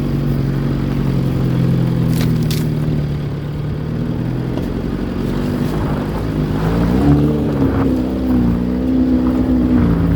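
Fiat 147 pick-up's engine pulling under load in low gear up a slope, running steady, then revving higher about two-thirds of the way in and holding there. A brief scraping clatter about two seconds in.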